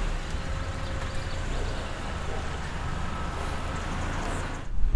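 Chrysler PT Cruiser convertible moving slowly while parking: a steady low engine rumble under even road and street noise, which drops away sharply near the end.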